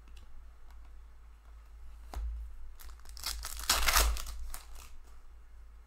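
Foil wrapper of a hockey card pack torn open and crinkled by hand. The crackle starts about two seconds in and is loudest around four seconds in.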